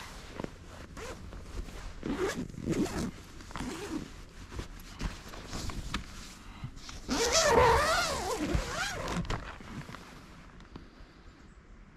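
Tent door zipper being pulled open in several strokes, among knocks from handling the tent. The longest and loudest zip comes about seven seconds in.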